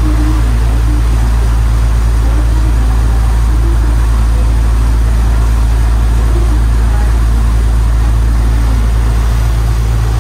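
Sightseeing boat's engine running, a loud, steady, deep drone that does not change.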